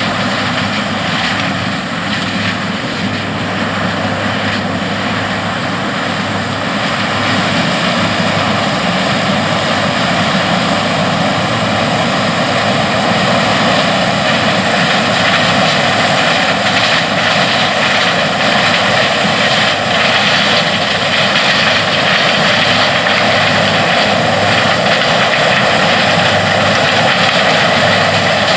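New Holland CR8090 twin-rotor combine running steadily under harvesting load, a constant engine and machine drone that grows a little louder after about eight seconds.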